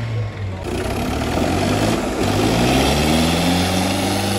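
Tractor diesel engines under full load in a tochan tug-of-war, two tractors chained back to back. The engines rev up, rising in pitch for about two seconds, then hold high.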